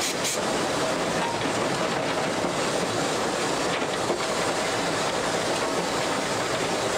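Narrow-gauge steam locomotive running, heard from inside its cab: a steady, dense mechanical noise that holds at one level throughout.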